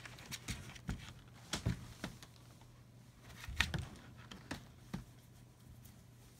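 Scattered light rustles and clicks of puppies and a kitten shifting about on newspaper bedding, with a faint steady low hum underneath.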